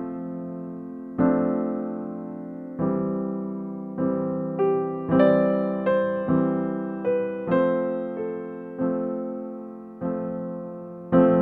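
Slow piano music with no singing: chords struck about once a second or less and each left to fade.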